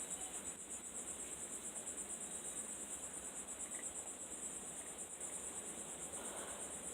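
Steady chorus of insects trilling, a high, fast-pulsing whir that holds evenly throughout.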